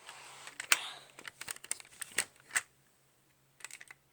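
Plastic Lego pieces of a rubber-band rifle clicking and rattling as it is handled and its magazine release is worked: a light rustle, then several sharp clicks, a short pause, and a few lighter clicks near the end.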